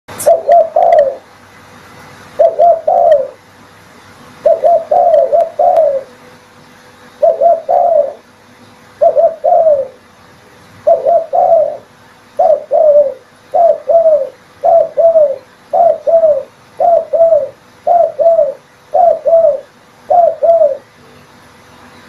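Spotted dove cooing repeatedly in short phrases of two or three coos. The phrases come about every two seconds at first and about once a second in the second half.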